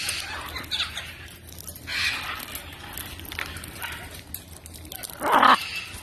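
Blue-and-yellow macaws giving short, harsh calls, several times, the loudest about five seconds in.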